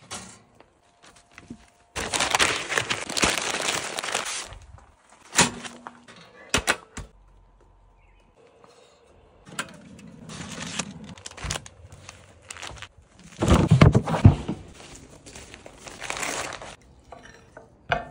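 Butcher paper crinkling and rustling in several bursts as a smoked beef shank is wrapped, with a few short knocks in between.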